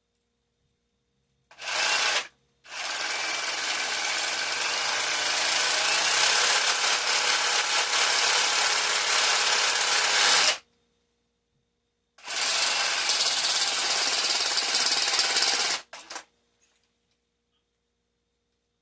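Handheld power tool working a metal bus bar, switched on and off in three runs: a short burst, a long run of about eight seconds, then one of about three and a half seconds, each starting and stopping abruptly.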